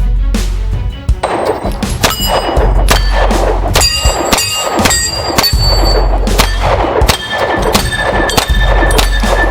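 Background music with a steady beat of metallic, clanging percussion hits that ring with bell-like tones, about two a second, over a repeating deep bass.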